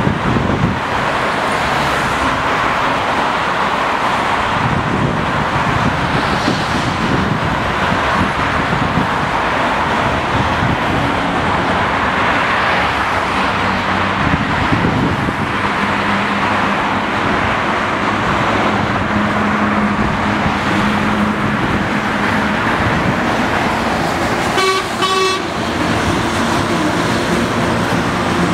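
Steady road traffic noise of passing cars and trucks, with a short horn toot near the end.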